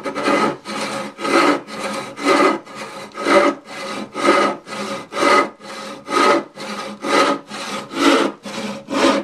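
Freshly sharpened brass-backed backsaw cutting through hardwood in steady back-and-forth strokes, about two a second, with every other stroke louder. The strokes are light: the saw's own weight pushes the teeth into the timber, with no downward pressure.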